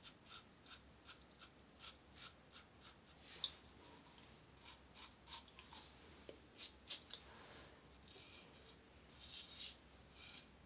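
Schick Type L injector razor scraping through lathered stubble under the lip and on the chin: faint, crisp rasping strokes, about three a second at first, then in short groups with a couple of longer strokes near the end.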